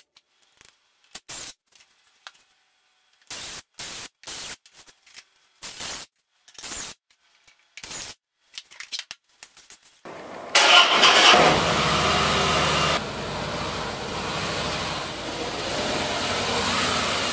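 Short, separate strokes of a sanding sponge rubbing across pine boards. About ten seconds in, a Harley-Davidson Fat Boy's V-twin engine starts with a loud burst for a couple of seconds, then runs steadily at idle.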